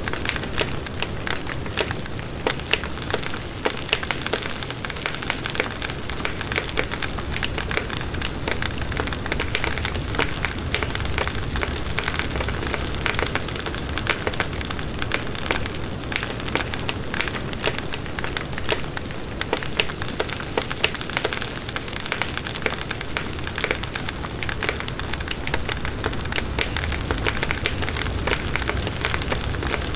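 Bonfire burning with a steady, dense crackle of small snaps over a low rumble of the flames.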